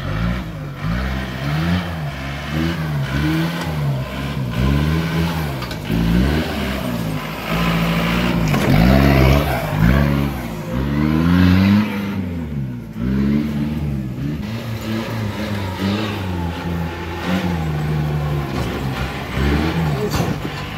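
Modified off-road jeep's engine revving hard over and over as it works up a rutted dirt climb, the pitch swelling up and dropping back roughly once a second.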